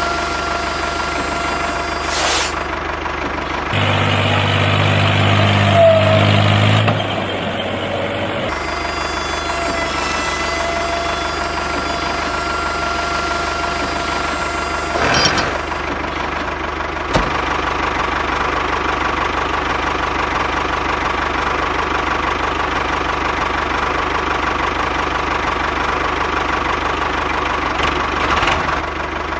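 Tractor engine running steadily, with a louder, deeper stretch from about four to eight seconds in.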